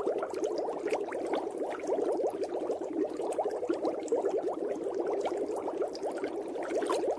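Water bubbling steadily as a dense, unbroken stream of small bubbles, heard as underwater ambience.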